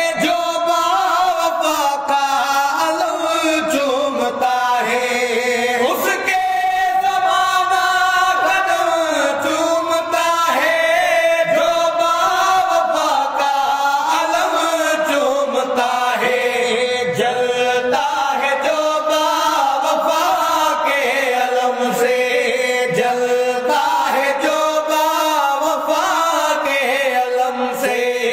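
Several men singing together in a slow Urdu devotional song in praise of Ali. The voices hold and bend long drawn-out notes with no breaks.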